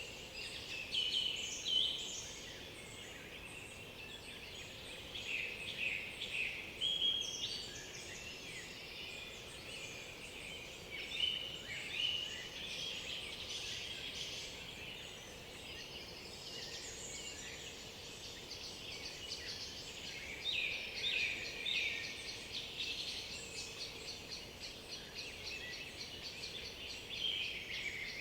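Several songbirds singing at once in a forest, their overlapping whistled phrases, trills and chirps continuous over a faint steady background hiss. Louder bursts of song come about a second in, around 6 and 11 seconds, and again around 20 seconds in.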